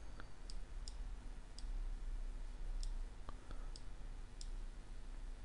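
Scattered, irregular clicks of a computer mouse and keyboard, about seven in all, over a steady low hum.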